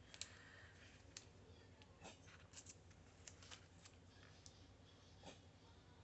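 Faint, scattered small clicks and crinkles of paper being handled as a washi-tape butterfly sticker is peeled off its backing, about eight light ticks spread over several seconds.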